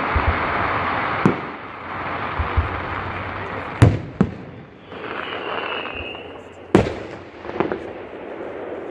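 Aerial fireworks shells bursting: several sharp bangs, the loudest about four and seven seconds in, among dense crackling from crackle shells.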